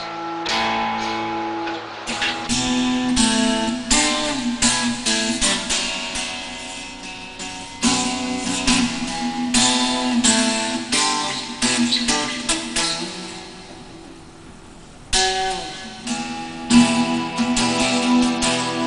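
Acoustic guitar strummed in chords. The strumming thins out and the chords ring down in the middle, then a hard strum comes back about fifteen seconds in.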